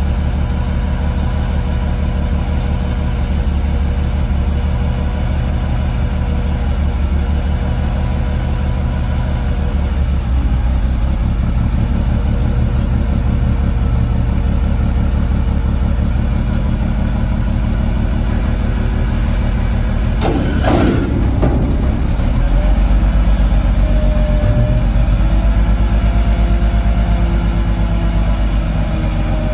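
Peterbilt front-loader garbage truck's natural-gas engine idling steadily. About twenty seconds in there is a brief metallic clatter. The running then grows louder and deeper as the Maxon body's hydraulics take the load of the front forks lifting a container over the cab, still at idle.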